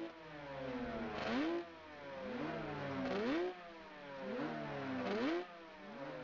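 Motorcycle engine being revved in repeated blips. Each blip rises sharply in pitch and falls back, and the three strongest come about two seconds apart.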